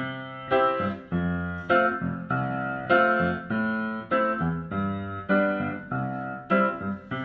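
Background music: piano chords struck about every half second, each ringing and fading before the next.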